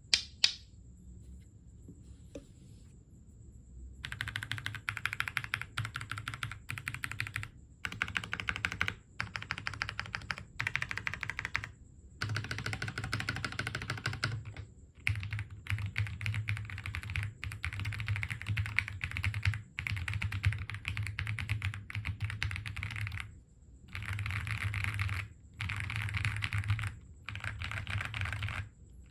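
Typing on a QK100 mechanical keyboard fitted with Kailh Pro Purple tactile switches and PBTFans Vior PBT keycaps: rapid keystroke clacking in bursts of a second or two, with short pauses between. A single sharp click comes right at the start, then about four seconds of quiet before the typing begins.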